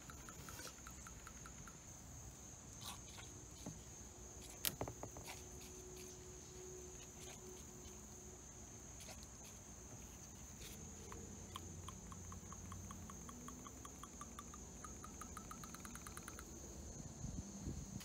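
Insects chirping: a steady high buzz with trains of rapid, evenly spaced chirps that come and go. A few faint clicks and taps, the sharpest about four and a half seconds in.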